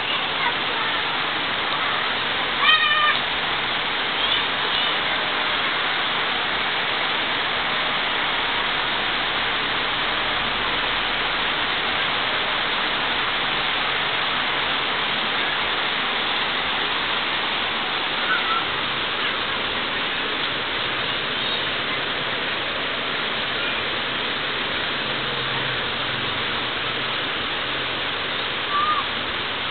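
Steady rain hissing evenly. An animal gives a few short, high cries over it: once at about three seconds, again soon after, and twice more later on.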